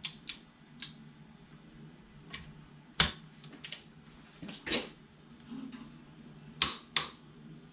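Irregular sharp clicks and knocks, some in pairs, from a torque wrench being handled on an impact socket clamped in a vise; the loudest comes about three seconds in.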